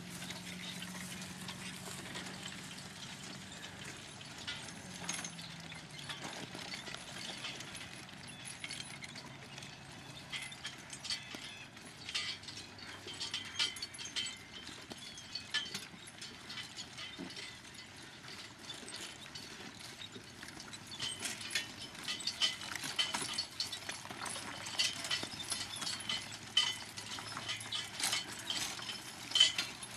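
Horse-drawn plowing: irregular metallic clinks and jingles of harness and trace chains, with hoof steps of the draft team, thicker in the second half.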